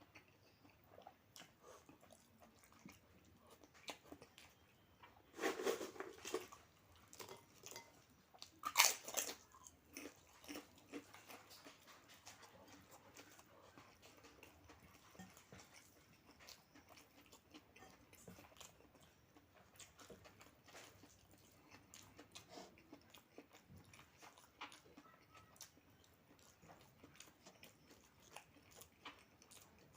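Close-up eating sounds: chewing and biting, with scattered small clicks. Two louder, crunchier stretches come about six and nine seconds in.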